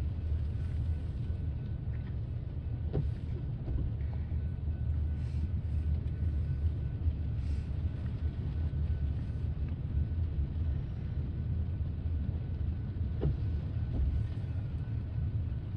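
Steady low rumble of a slow BNSF grain train's freight cars rolling past, with a few faint clicks.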